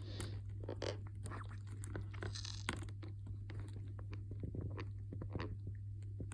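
Metal paperclip scraping and picking inside an iPad's charging port to dig out packed dirt: a run of small irregular clicks and scratches, over a low steady hum.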